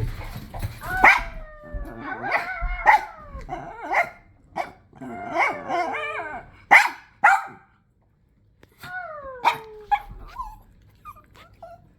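A dog 'talking': a run of whiny, wavering calls that slide down in pitch, mixed with short yips and sharp barks. It breaks off briefly about eight seconds in, then resumes more softly.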